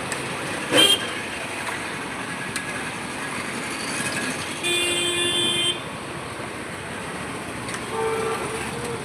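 Street traffic noise with a vehicle horn honking for about a second near the middle and another shorter honk near the end. A short, loud blast comes about a second in.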